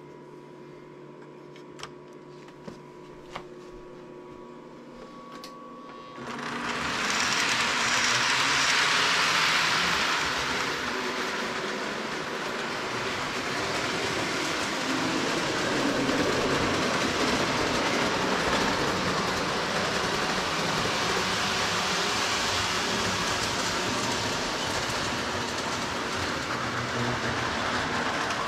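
A few faint clicks, then, about six seconds in, a Lionel O-gauge model train starts running on three-rail track and keeps going with a steady, noisy run of motor and wheels.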